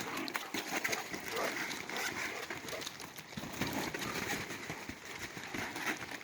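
Dogs moving about on a trampoline: an irregular scuffle and patter of paws on the mat.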